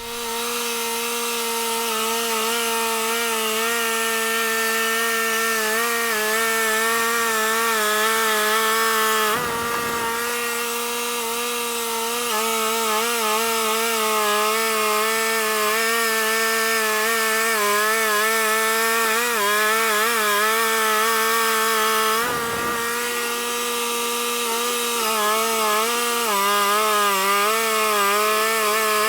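Wood-Mizer portable band sawmill running, its engine holding a steady note while the band blade cuts a slab from a hickory log. The sound comes in abruptly at the start, two brief rushes of noise break through about 13 seconds apart, and the engine note wavers slightly near the end.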